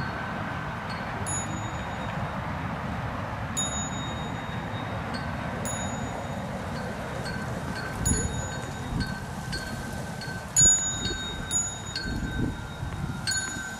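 Small metal bells struck again and again at an uneven pace, each strike ringing on in clear high tones. Wind rumbles on the microphone, in louder gusts during the second half.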